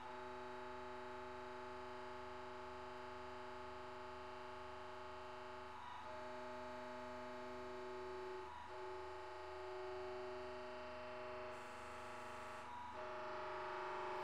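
Hydraulic press pump running under load as it drives a cylinder to pressurize a water-filled chamber: a faint, steady hum of several tones that dips briefly a few times, with a short hiss about twelve seconds in.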